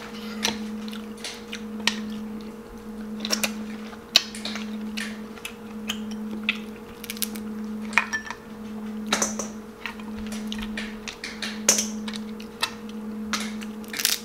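Close-up eating sounds: chewing and mouth noises, with sharp clicks and cracks of crab shell being broken apart by hand. A steady low hum runs underneath.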